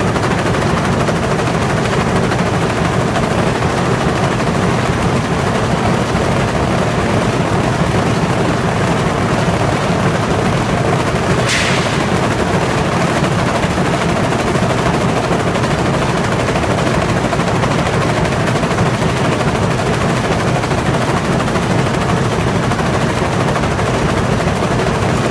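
Corrugated carton vibrator and stacker running: a loud, steady, dense rattling clatter as die-cut corrugated sheets are shaken free of their waste trim on the belts. A short hiss cuts in about halfway through.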